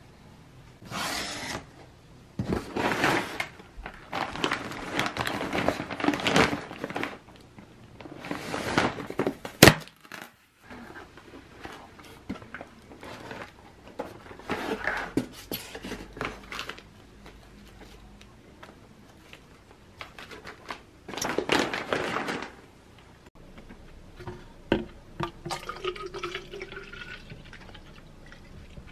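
Cardboard box and plastic food packaging handled and unpacked by hand: irregular bursts of rustling and crinkling, with one sharp snap about ten seconds in. Near the end, liquid is poured into a plastic bottle.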